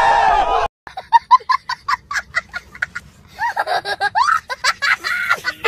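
A crowd of young men shouting together, cut off suddenly under a second in. Then a young boy laughing hard: a quick run of short 'ha' bursts, then longer laughs that swoop up and down in pitch.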